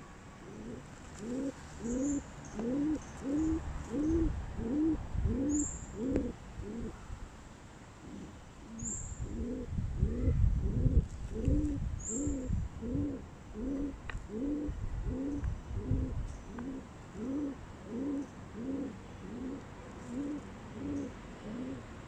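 Rock pigeon cooing in a long run of short low hoots, each rising and falling, about two a second, with a short pause about a third of the way through. Low rustling handling noise sits under the middle stretch.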